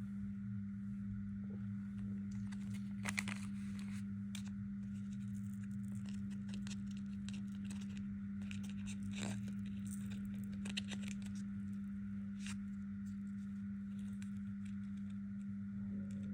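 A steady low hum throughout, with a few short crinkling, tearing sounds of candy wrappers being handled, the clearest about three seconds in and again around nine seconds.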